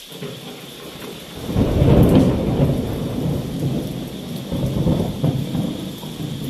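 Thunder rolling over steady rain. A deep rumble swells up about a second and a half in, is loudest at around two seconds, then keeps rumbling in uneven swells as it slowly eases, over a constant hiss of rain.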